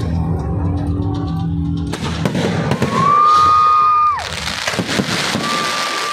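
Fireworks going off: a string of crackles and pops, with a broad hiss setting in about two seconds in. Two long steady whistles rise over it, each dropping in pitch as it ends; the first is the loudest sound.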